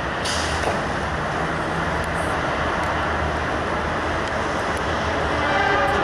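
Heavy vehicle noise: a steady low rumble, with a pitched engine or motor note coming in and growing a little louder near the end.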